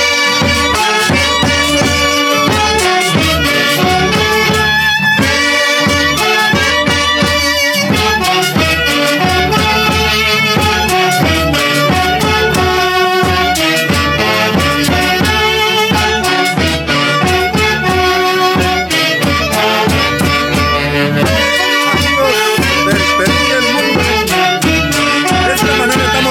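An Andean orchestra playing an instrumental huaylía, several melodic instruments over a steady beat.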